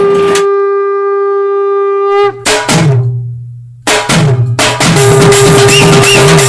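Dramatic film background score: a long held note that cuts off about two seconds in, then a few heavy drum hits, a brief pause, and from about four seconds in a driving drum beat with a pulsing bass line.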